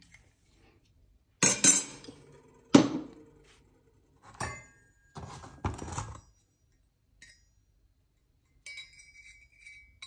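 Aluminium bicycle crankset parts being handled on cardboard: several separate metal knocks and clinks, the loudest about three seconds in. Near the end comes a lighter ringing clink as the 53-tooth chainring is fitted onto the crank spider.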